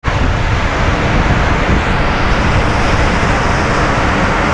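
Hot geyser water rushing steadily over rocks: a loud, even roar with a deep rumble underneath.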